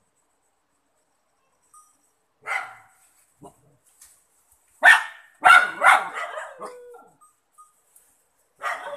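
Dog barking in short bursts: one bark about two and a half seconds in, then a run of loud barks about five seconds in, and more barking just before the end.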